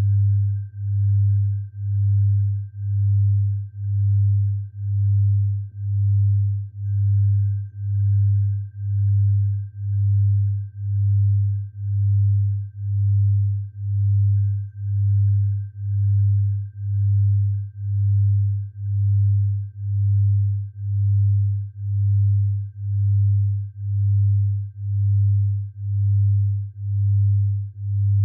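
Synthesized tinnitus sound-therapy tones: a low, pure hum that swells and fades about once a second, with a faint steady high tone held above it.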